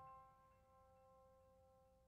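Near silence: the last notes of soft background piano music fading out.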